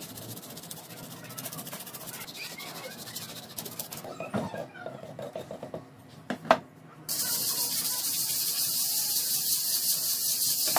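Hand tools scraping and rasping on cured concrete: light filing strokes, a single sharp click about six and a half seconds in, then a louder, steady, fast rasping hiss from about seven seconds on.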